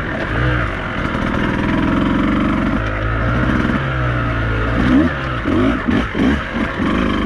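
Beta 200RR two-stroke enduro motorcycle engine running under load on the trail, fairly steady at first, then revved up and down in quick throttle blips over the last couple of seconds.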